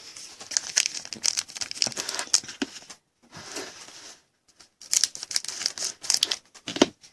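Trading-card pack wrapper crinkling and being torn open, in two stretches of dense crackling with a short pause between.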